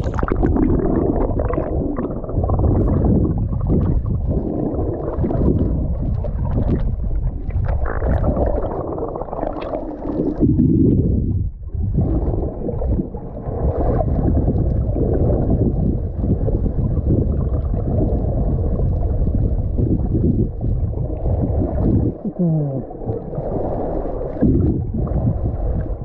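Underwater sound picked up by a camera below the surface while snorkelling: a muffled, uneven rumble and gurgling of water, with almost nothing high-pitched.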